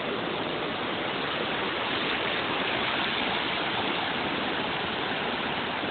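Waves breaking and washing in: a steady rushing of surf that swells slightly a couple of seconds in.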